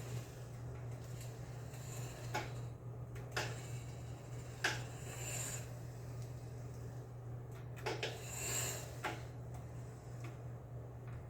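Permobil F5 Corpus VS power wheelchair's drive motors running with a steady hum, broken by scattered clicks and scraping rubs; the hum stops right at the end. These are motor noises the owner is unsure are normal, on a chair whose right side jerks when turning.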